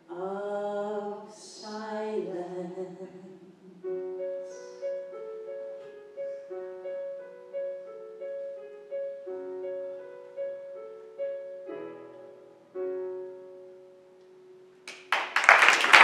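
Two women's voices singing a final held line over piano, then the piano alone playing a slow repeating figure of single notes for about ten seconds before dying away. Applause breaks out loudly near the end.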